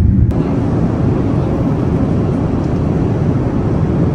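Steady low roar of jet airliner cabin noise, with a single click just after the start.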